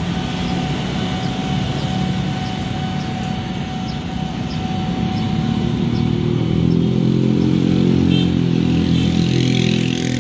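Motorcycles and other road traffic passing, their engines growing louder in the second half, one rising in pitch near the end. Behind them the railway crossing's warning alarm sounds steadily.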